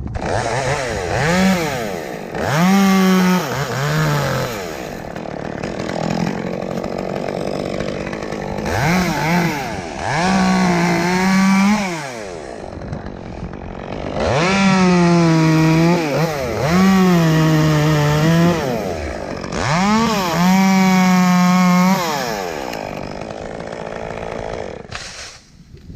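Chainsaw cutting through a red oak lead, its engine revving up to full throttle in repeated long bursts and dropping back toward idle between them. It cuts off shortly before the end.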